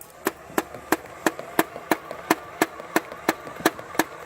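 Nerf Rival Khaos blaster firing foam balls in full auto: an even string of sharp clicks, about three a second.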